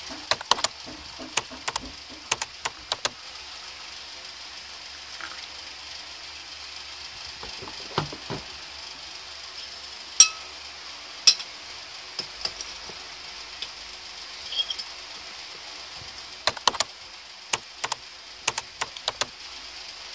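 A metal spoon clinking against a ceramic mug in scattered bursts while coffee is stirred, the clinks sharp and irregular over a steady faint hiss.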